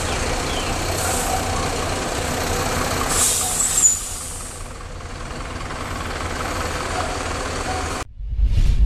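Fire truck's diesel engine running at low speed, with a short hiss of air about three seconds in. About eight seconds in it cuts off abruptly into a whooshing transition effect.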